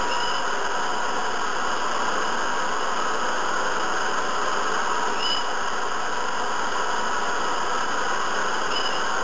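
Hair dryer running steadily, a constant rush of blown air.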